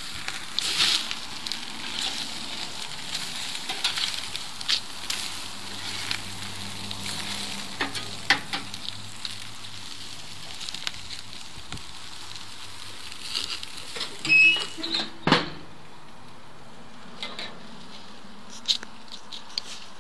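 Steaks sizzling on a grill, with scattered clicks and knocks; the loudest knocks come about three-quarters of the way through, after which the sizzle turns much quieter.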